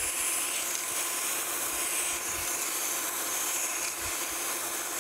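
Flat file held against the freshly turned journal of a cast cane-mill roller spinning in a metal lathe: a steady rasping hiss, with the lathe running underneath.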